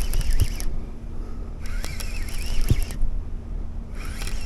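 Fishing reel being cranked in three short bursts, a raspy, wavering whir, while a hooked catfish is brought in, over a steady low hum.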